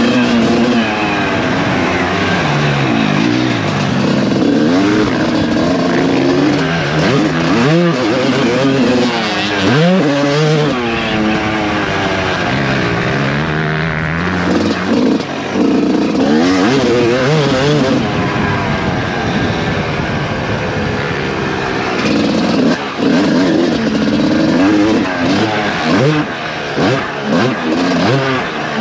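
Suzuki RM250 two-stroke motocross bike's engine revving up and down as it is ridden round a track, its pitch rising and falling with the throttle. Near the end the throttle is chopped several times in quick succession.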